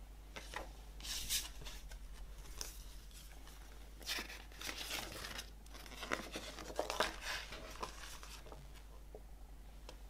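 Folded paper CD insert being handled and unfolded into a fold-out poster: the paper rustles and crackles in several bursts, loudest about a second in and again in the middle of the stretch.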